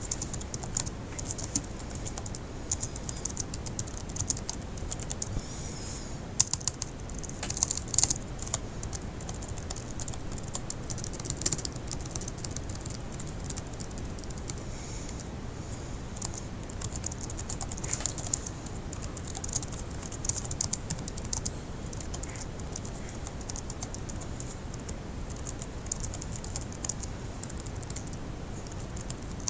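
Fast typing on a laptop keyboard: a dense, uneven run of light key clicks with a few louder keystrokes among them.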